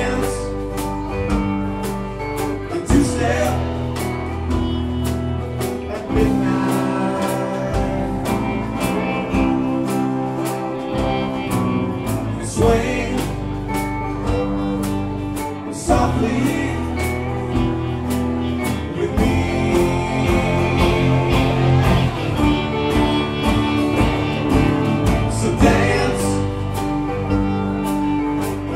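Live alt-country rock band playing, with electric guitars, acoustic guitar, bass guitar and a drum kit keeping a steady beat, and a male lead vocal.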